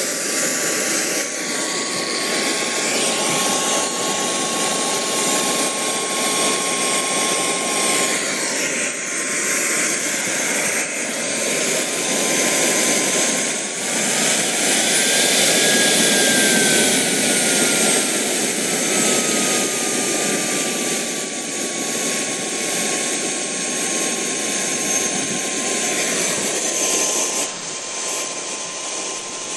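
Wren MW44 model turboshaft turbine running on kerosene: a steady high whine over a rushing exhaust. About halfway through its pitch rises briefly, then eases slowly back down.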